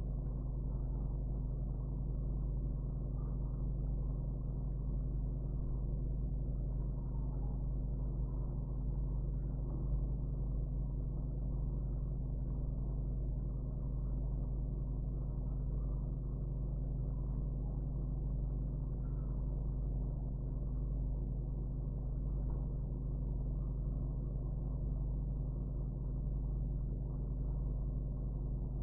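Steady low hum that does not change.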